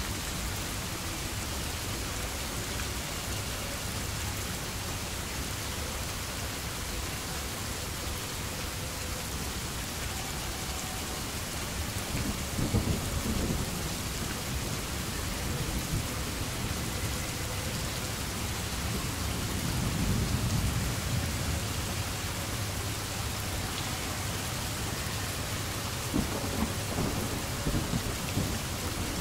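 Steady rain hiss with low thunder rumbles rolling in three times: about twelve seconds in, around twenty seconds, and near the end.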